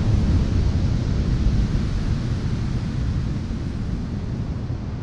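Wind buffeting the microphone over ocean surf, a steady rumbling noise that gradually fades out.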